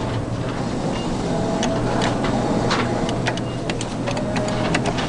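Arcade din: a steady low hum, many short clicks and knocks, and a few brief electronic beeps from the games, with a claw machine's motors whirring as the claw is worked.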